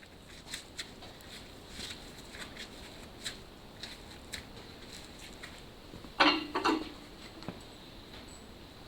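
Light metallic ticks and taps of hand tools working on engine parts, with a short burst of louder clanking about six seconds in.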